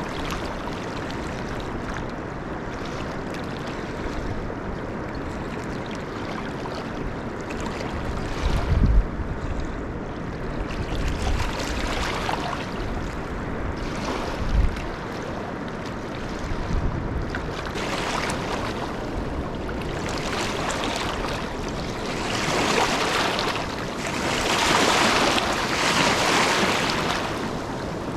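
Steady rush of flowing river water, with wind buffeting the microphone: a few low thumps about a third of the way in and around halfway, and the hiss swelling louder near the end.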